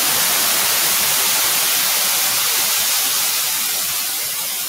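Steady loud static hiss of the recording microphone's noise, easing slightly near the end.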